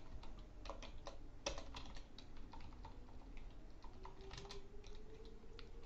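Computer keyboard being typed on: an irregular run of quick key clicks as a terminal command is entered.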